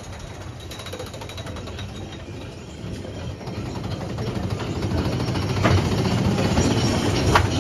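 Big Thunder Mountain Railroad coaster train running along its track with a steady rattle of rapid clicking and clacking over a low rumble. The rattle grows louder, and two sharp knocks come near the end.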